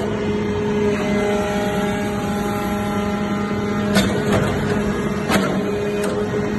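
Metal-shavings baling press running with a steady machine hum and several held tones, with a few sharp clicks or knocks in the second half.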